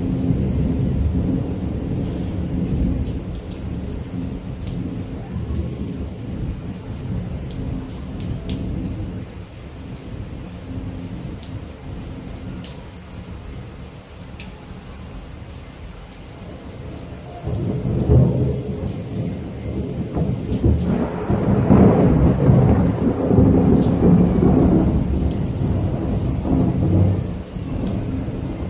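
Thunderstorm: steady rain with rolling thunder. A long rumble fades away through the middle, then a new roll of thunder builds about eighteen seconds in and is loudest a few seconds later.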